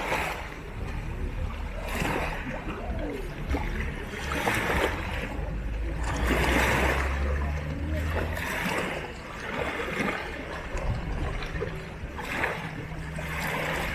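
Small sea waves lapping and splashing against rocks at the water's edge, a splash every second or two, over a low steady rumble.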